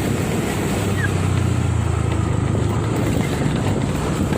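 Vehicle engine running steadily on the move, with wind rushing over the microphone; a single short faint chirp about a second in.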